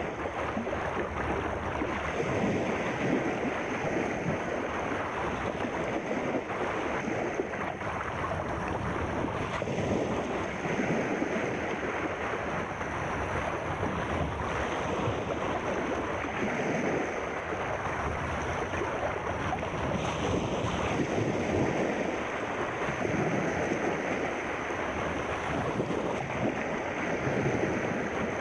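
Sea surf washing in, a continuous rush of water that swells and eases slowly.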